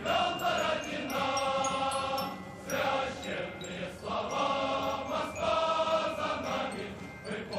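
Music with long held chords, in phrases of about two seconds broken by short dips.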